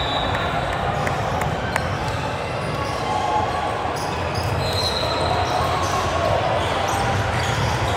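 Indoor basketball game: a ball bouncing on the court amid scattered sharp knocks and short high squeaks, over a steady background of spectators' voices in a reverberant gym.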